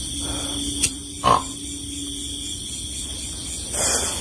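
Steady night chorus of frogs and insects with an even high trill. Just after a second in comes a short, loud call that drops in pitch, and near the end a brief rush of noise.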